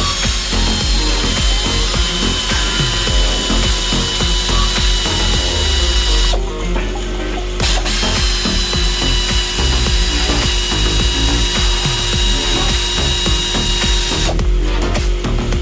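Hand socket ratchet wrench clicking in quick runs as bolts are turned.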